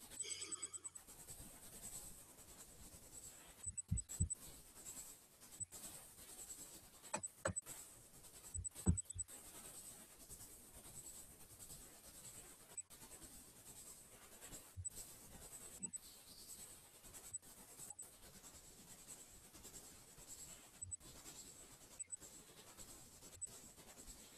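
Steady faint hiss of an open computer microphone in a small room, with a thin high tone running through it. The hiss is broken by scattered soft knocks and clicks, the loudest about 9 seconds in.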